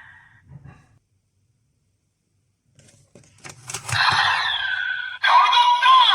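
A few plastic clicks from a Kamen Rider Gotchard Valvarad wrench-sword toy being worked, then its speaker plays electronic sound effects with a falling, gliding tone, which grow louder near the end.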